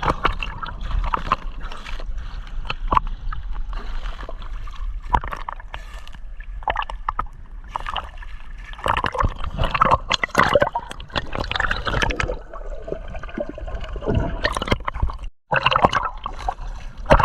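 Choppy sea water splashing, sloshing and gurgling around a swimmer in rough waves, with irregular splashes throughout. The sound cuts out for a moment near the end.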